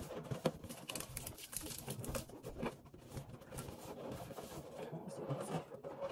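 Hands handling an inflated latex balloon: irregular light taps and rustles as fingers and long nails move over the rubber.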